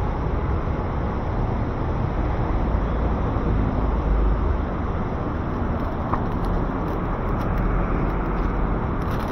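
Steady city street traffic noise: a continuous rumble of vehicles on a busy road.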